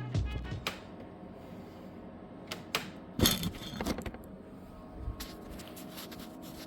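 Scattered sharp clicks and knocks, like parts and tools being handled, bunched about three seconds in, over a steady faint hum. The tail of a piece of music cuts off right at the start.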